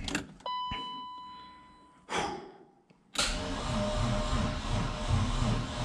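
A single electronic chime rings out and fades about half a second in. From about three seconds in, the starter turns the BMW M52 inline-six over slowly with an even pulsing, as though on a battery too weak to crank it properly.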